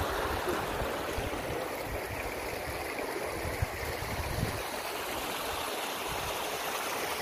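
A hill stream running steadily, with an uneven low rumble underneath.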